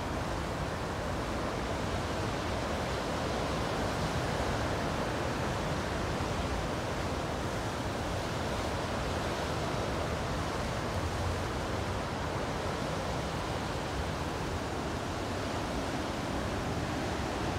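Ocean surf breaking and washing over shoreline rocks: a steady, even rush of water noise.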